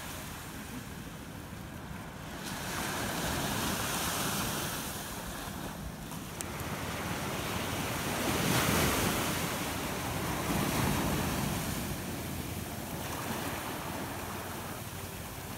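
Small waves breaking and washing up a sandy beach, the rush of water swelling and fading several times, with wind blowing on the microphone.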